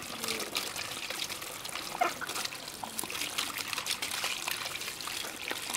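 A stream of running water pouring and splashing onto a hollow plastic mask while hands rub it clean, with a steady trickle and many small splashes. One sharper click about two seconds in.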